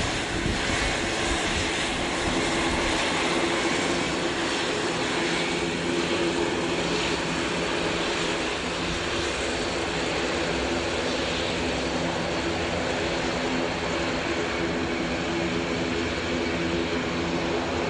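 Airbus A400M turboprop engines and propellers running steadily: a constant drone with a steady hum underneath that does not change in pitch.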